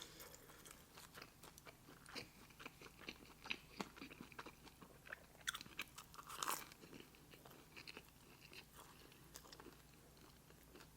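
Faint close-up chewing of a mouthful of pepperoni flatbread pizza: soft scattered mouth clicks and small crunches, a few louder ones about six seconds in, dying away near the end.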